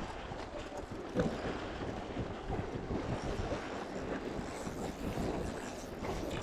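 Wind buffeting the microphone over choppy water washing against a steep rock bank, with one louder rush about a second in.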